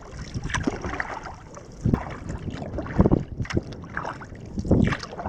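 Kayak paddling on choppy water: irregular splashes of paddle strokes and small waves slapping the hull, with some wind on the microphone.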